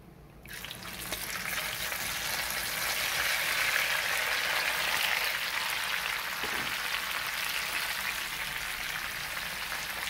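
Sliced peppers, onions, sweet potatoes and tomatoes sizzling as they go into hot oil rendered from sausages in a frying pan. The sizzle starts about half a second in, swells over the first few seconds, then holds steady as the vegetables fry.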